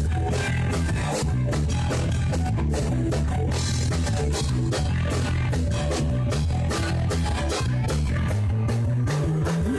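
Live rock band playing an instrumental passage: electric guitars, bass and a drum kit keeping a steady beat.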